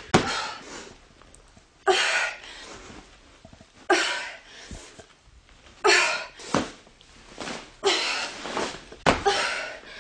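A woman's hard, forceful exhales and grunts, one about every two seconds, as she works a sandbag through repeated lifts from the floor to her shoulders. A few short dull knocks, the bag being handled or set down, come between them.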